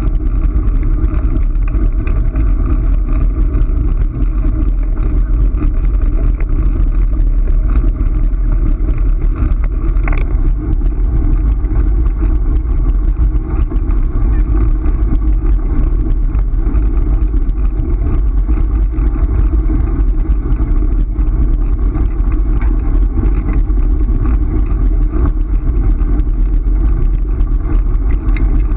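Steady loud rumble of a Kostka kick scooter's wheels rolling over a dirt and gravel track.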